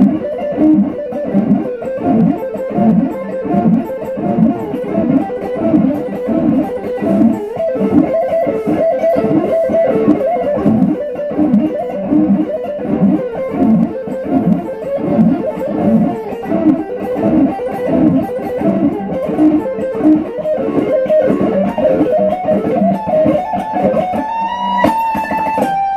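Fender Stratocaster electric guitar played through a small combo amp: fast lead lines of quick single notes, ending about two seconds before the close on one held high note with vibrato.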